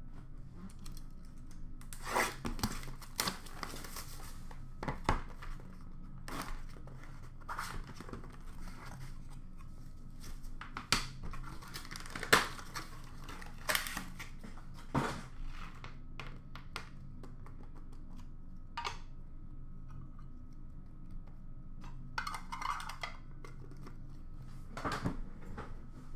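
Cardboard card boxes and plastic card holders being handled and opened: scattered clicks, taps and short rustles at irregular intervals.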